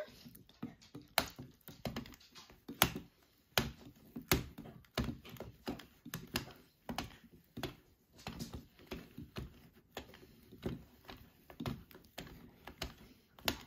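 Addi Egg hand-cranked plastic i-cord knitting mill being turned slowly, its mechanism giving irregular clicks and taps, a couple a second, some louder than others.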